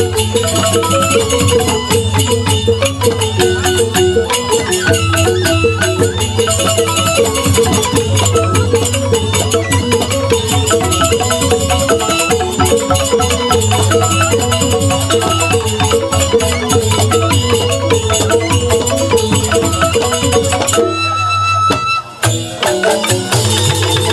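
A Balinese bamboo gamelan ensemble of bamboo xylophones, kendang drums and suling flutes playing an instrumental piece in fast interlocking strikes. Near the end the playing thins out and almost stops for a moment, then picks up again.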